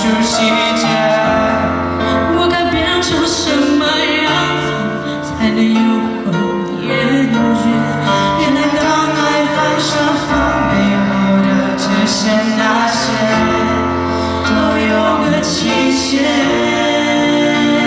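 A male and a female voice singing a duet of a Mandarin pop song, accompanied by an electronic keyboard.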